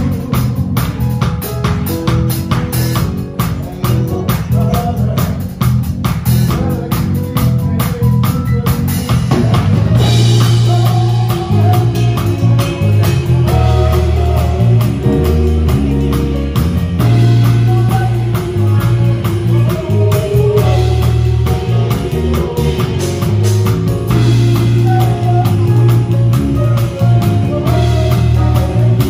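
Band music with a drum kit, guitar and singing. About ten seconds in, a heavy bass comes in and the music fills out.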